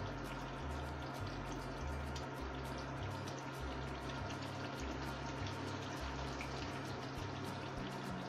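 Thick curry sauce simmering in a pan, bubbling and popping steadily.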